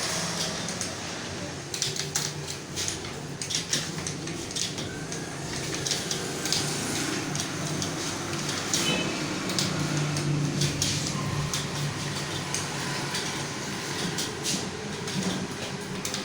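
Computer keyboard being typed on quickly, a rapid, irregular stream of key clicks as home-row keys are struck.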